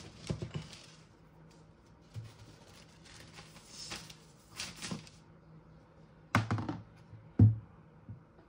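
A MacBook Air laptop being handled on a wooden desk: scattered clicks and taps with some rustling, then a few knocks near the end, the last one the loudest.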